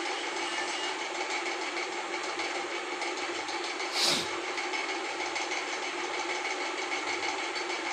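LG WF-T7066MN washing machine running a spin test on its newly fitted gearbox: a steady motor hum with a high whine. One short knock is heard about four seconds in.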